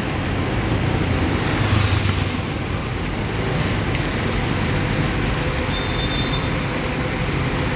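Heavy, slow-moving traffic of buses and cars, led by a city bus's diesel engine running as it creeps past close by; the low engine hum swells about two seconds in, then settles to a steady drone.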